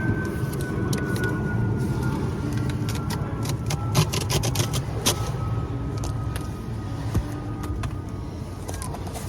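A cardboard box and its packaging being handled and opened, giving scattered short clicks and crackles. Underneath is a steady low rumble and a faint whine that falls slowly in pitch.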